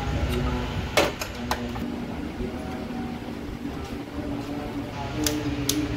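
Sharp metallic clinks of tools and engine parts during engine reassembly over a steady hum. The loudest is a single clank about a second in, with a brief ring, followed by two lighter clicks, and two more clinks come near the end.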